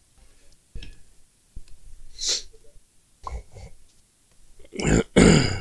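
A man breathing and sniffing close to the microphone: a few short breaths, then two louder ones near the end.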